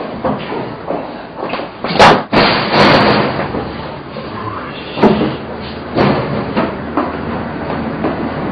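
A series of sudden bangs and thuds, the loudest about two seconds in and others about three, five and six seconds in, over a steady rumbling background.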